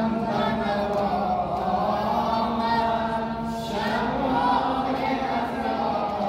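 Male voices chanting a Shia mourning lament in long, held notes that slide to a new pitch every few seconds.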